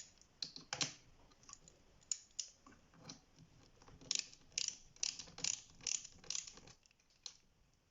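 A bolt on a bicycle fork being turned in with a hand tool: a run of short metallic clicks and ticks, irregular at first, then coming about two a second in the second half.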